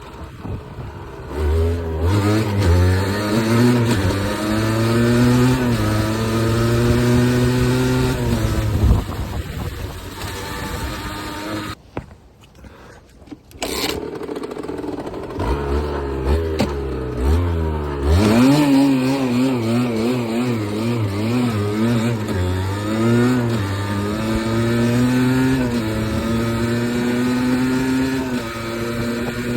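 Beta RR 50 motorcycle's 50cc two-stroke engine revving up and down repeatedly while riding. The sound briefly drops away about twelve seconds in, then picks up again.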